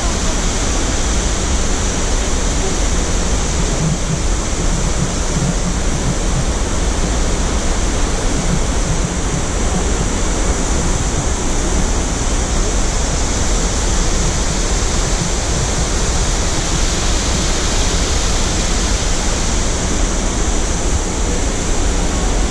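Steady, loud rush of Upper Mesa Falls, a waterfall about 114 feet high on the Henrys Fork, with the whitewater river churning below it.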